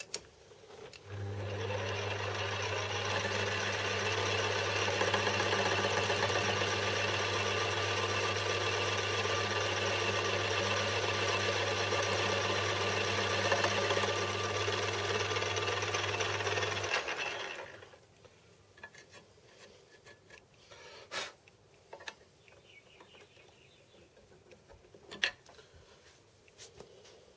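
Small bench metal lathe running and turning a metal crank release lever, with a steady motor hum and cutting hiss. It starts about a second in and stops about two-thirds of the way through, followed by a few light clicks of handling.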